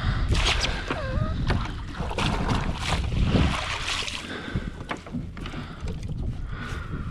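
Water splashing as a redfish is scooped up in a landing net at the side of a kayak and lifted out, in several splashy bursts, loudest about three to four seconds in. A steady low wind rumble on the microphone runs under it.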